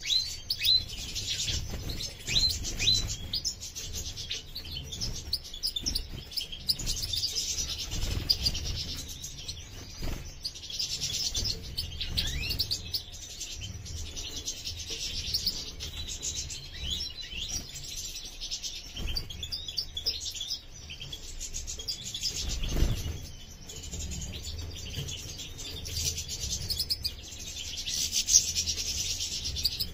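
European goldfinches chirping and twittering, a continuous run of short high calls and song phrases. A low rumble lies underneath, with a single thump about two-thirds of the way through.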